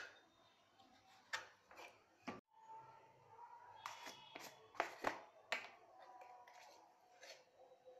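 A kitchen knife taps sharply against a plastic cutting board as goat intestine is chopped, a few separate clicks in the first two seconds. After a brief break, scattered faint clicks and knocks follow.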